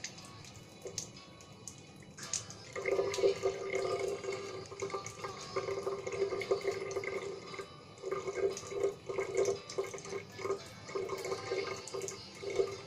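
Salt water from a nasal rinse running out of a nostril and splashing down in uneven, on-and-off runs, getting louder about two seconds in.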